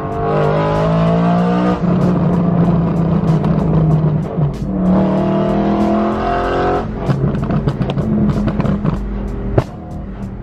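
BMW E92 M3's V8 engine pulling hard under acceleration, heard from inside the cabin: the revs climb twice, each time dropping suddenly at a gear change, about two seconds in and again near seven seconds.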